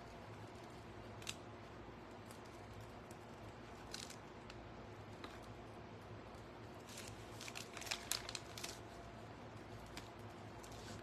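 Faint scattered clicks and rustles of craft materials being handled on a tabletop, over a steady low hum.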